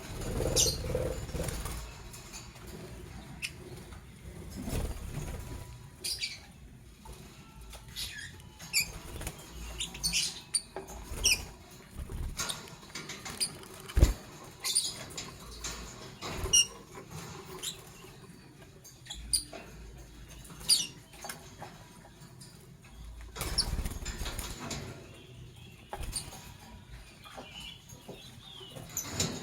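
Lovebirds moving about in their cage: scattered short, high chirps over scratching and rustling, with bursts of wing flapping near the start and toward the end, and one sharp click about halfway through.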